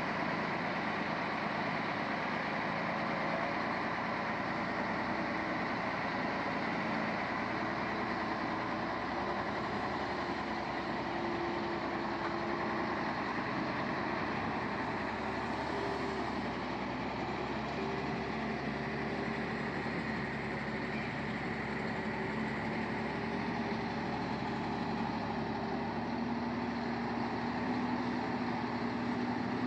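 Heavy diesel engines of an RK off-highway dump truck and a loaded Scania semi-truck running steadily under load as the dump truck tows the Scania out of mud, with the engine note shifting slightly in pitch.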